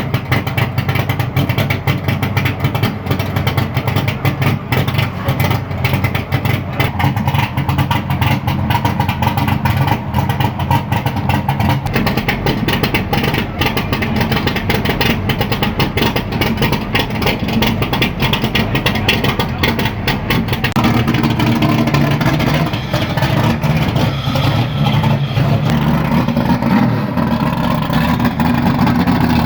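Naturally aspirated car engine running loud and held at high revs, rough and uneven for about twenty seconds, then settling into a steadier, smoother drone.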